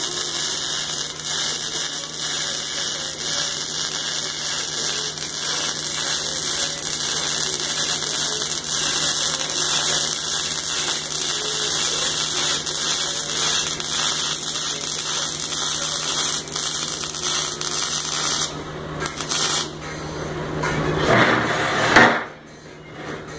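MIG welding arc crackling and hissing steadily while a bead is laid on a steel bracket. It stops about eighteen and a half seconds in, and is followed by a short rougher noise and a sharp knock near the end.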